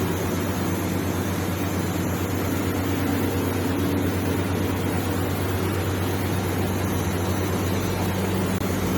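Welding arc on a 4-inch schedule 40 practice pipe, a steady buzzing hum with an even hiss over it and no breaks.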